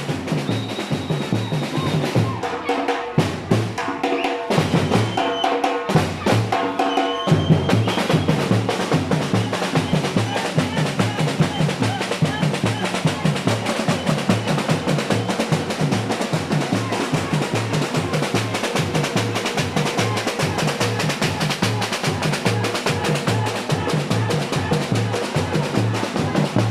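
Samba batucada drum ensemble playing a fast, steady groove. About two seconds in the low drums drop out and the band plays sharp unison accents, a break. The full groove returns about seven seconds in.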